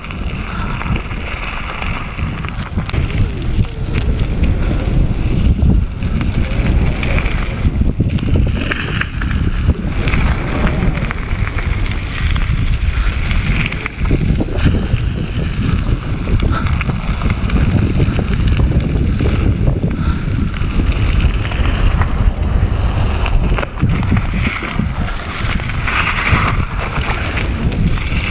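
Mountain bike running fast down a loose gravel trail: steady wind buffeting on the action camera's microphone over the crunch of knobby tyres on gravel, with scattered small knocks and rattles from the bike.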